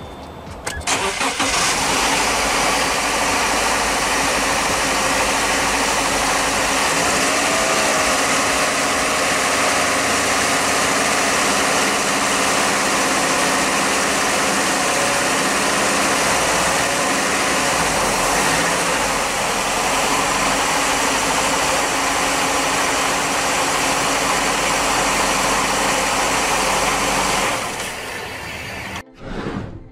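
Car engine running steadily with a clogged exhaust system restricting it. The sound drops near the end.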